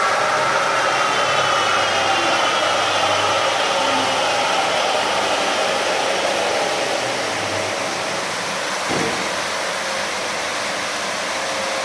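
Automatic carpet washing machine running: a steady rushing machine noise with a faint whine. There is a short knock about nine seconds in.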